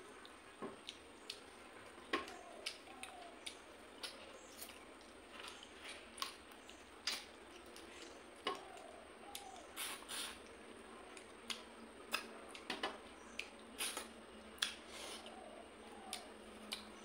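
Close-up eating sounds while a fish head from fish head curry is pulled apart by hand and chewed and sucked: irregular wet mouth clicks and smacks, at times several a second.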